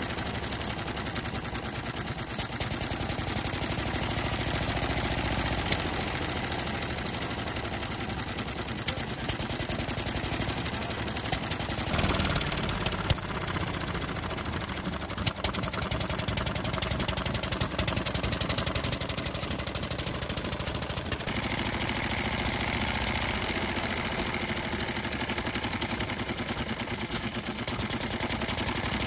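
Small Kubota SHA single-cylinder stationary engine running steadily at idle, firing in a quick, even beat.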